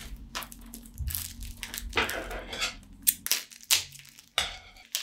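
Scissors cutting the wrapping on a stack of new stretched canvases: irregular crinkling and rustling with several sharp snips.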